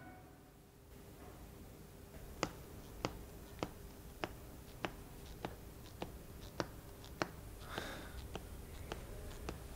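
Steady ticking, a sharp tick about every 0.6 seconds, starting about two and a half seconds in over a quiet room. There is a brief soft rustle about eight seconds in, and fainter, irregular clicks near the end.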